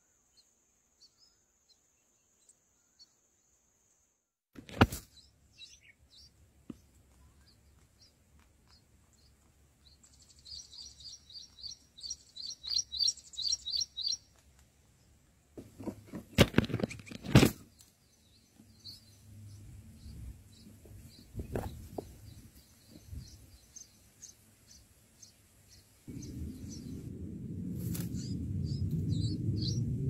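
Red-whiskered bulbuls at the nest chirping, with short high chirps scattered through and a quick run of about four a second between roughly ten and fourteen seconds in. A few sharp knocks stand out, and a low rumble comes in about four seconds before the end.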